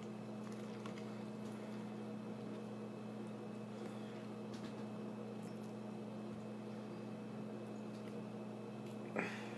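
Cooked lobster being picked apart by hand: faint clicks and soft wet handling of shell and meat, with a short louder crackle about nine seconds in, over a steady low electrical hum.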